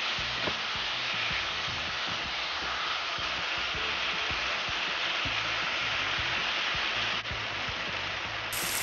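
Tamarind sauce sizzling and bubbling steadily in a frying pan with chicken wings as it cooks down and thickens, with an occasional light tap of the stirring utensil.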